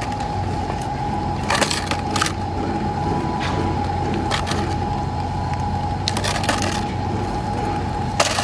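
Heavy earthmoving machine's diesel engine running steadily with a steady high whine, while rock cracks and clatters several times.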